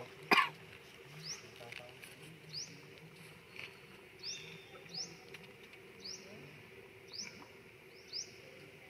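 Birds chirping: a short, high rising chirp repeated about once a second. A single sharp click about half a second in is the loudest sound.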